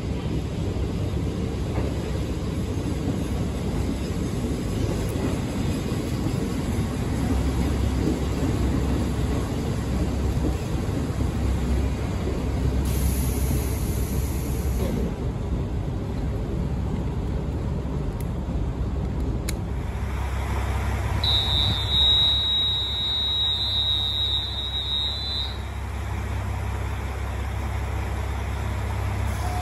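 KiHa 40 diesel railcar rumbling as it draws into the station along the platform, its engine and running noise swelling as it comes past. Then the railcar idling while stopped, with a high steady beep lasting about four seconds partway through.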